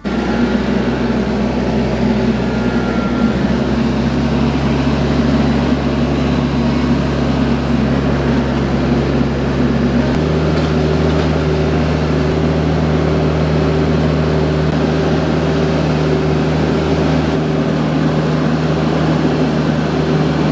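TYM T474 compact tractor's diesel engine running steadily at working throttle. Its pitch steps up slightly about halfway through.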